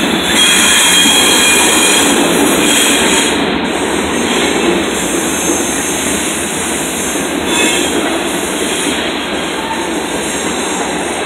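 A mixed freight train's covered hoppers and tank cars rolling past, a steady rumble of steel wheels on rail. A thin high wheel squeal comes and goes through the first few seconds and again briefly about two-thirds of the way through.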